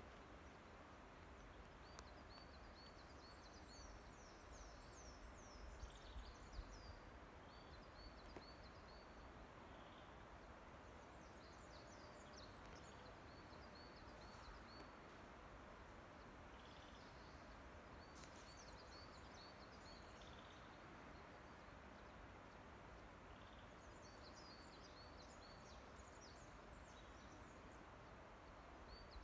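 Faint forest ambience with small songbirds singing: runs of short, high, repeated notes and quick trilling phrases that come and go every few seconds over a low, steady background hiss.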